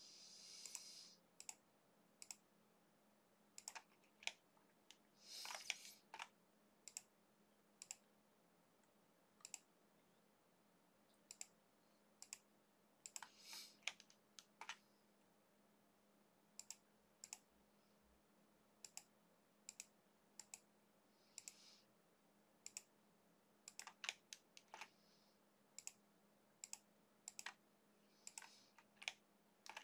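Computer mouse clicking: dozens of sharp single clicks at irregular intervals, often about a second apart. Each click places another point of a line. A few short, soft hisses come in between.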